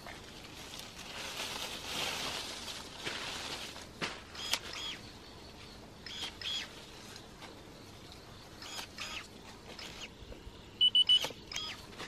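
Portable electric pruning shears cutting apple water sprouts: several short motor whirs with a snip, among leaves rustling against the branches. Three short high beeps come near the end.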